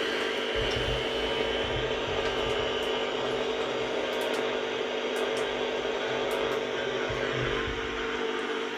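A radio broadcast playing through the small speaker of a 1983 Bush 6580 clock radio, clean and free of crackle after the repair.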